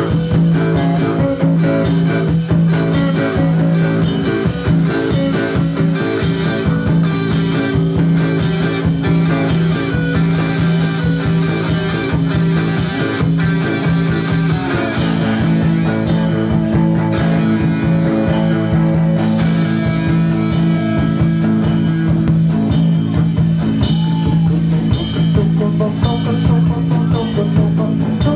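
Live rock band playing: electric guitars over a drum kit, with a steady low held note and a change of chord about halfway through.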